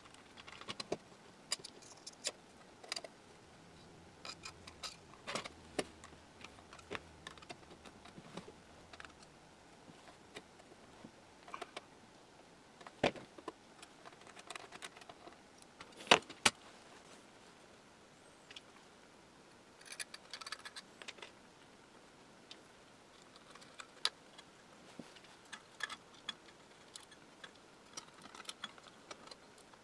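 Small metal hardware clicking and clinking as nuts, washers and binding posts are fitted by hand to a crystal radio's metal panel. Scattered light clicks, with a few sharper knocks about 13 and 16 seconds in.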